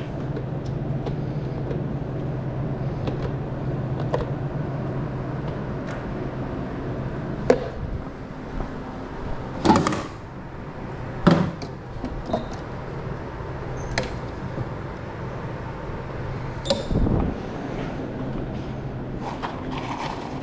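A steady low hum that eases about eight seconds in, with several short sharp knocks and clatters over the second half, the loudest about ten seconds in.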